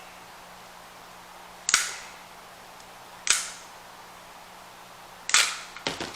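Three sharp snaps about a second and a half apart, each with a brief crinkly tail: toy packaging being worked open.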